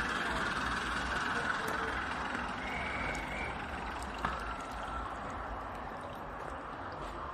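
Small garden-pond fountain splashing steadily, growing fainter over the seconds, over a low wind rumble, with a few faint chirps.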